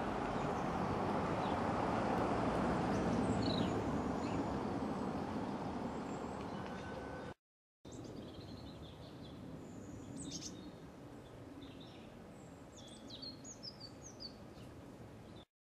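Outdoor ambience: a broad rushing noise swells and fades over the first several seconds, then, after a brief cut, small birds chirp in short high calls over quiet background noise.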